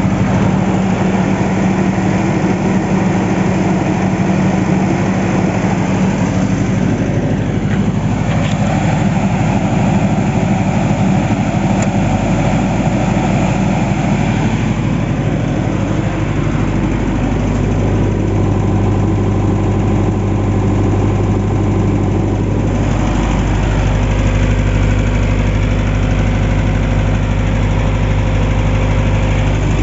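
Atlas Copco QAS 40 generator's Kubota V3800 four-cylinder diesel engine running steadily under load, a loud constant hum whose tone shifts slightly a few times.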